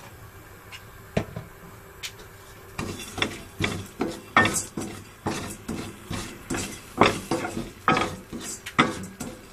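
A spoon scraping and knocking annatto (achuete) seeds out of a bowl into a steel pot of oil. After a couple of single clicks, there is a quick run of scrapes and clinks, two or three a second, from about three seconds in.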